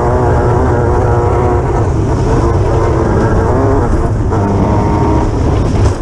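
Onboard sound of a Class 9 desert race buggy driving hard: the engine runs loud at high revs, its pitch rising and falling with the throttle, over a constant rush of driving noise.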